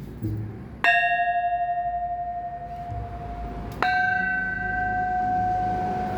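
Two Thai temple bells struck in turn, about three seconds apart, each ringing on with a long, clear tone; the second bell is slightly higher in pitch.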